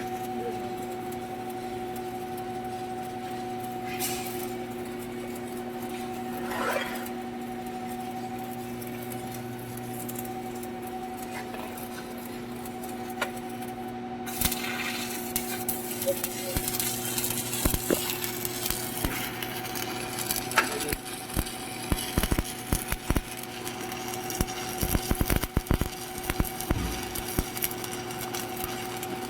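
Arc welding machine humming steadily. About fourteen seconds in, the stick-welding arc is struck and crackles and sputters, with irregular sharp pops that grow denser.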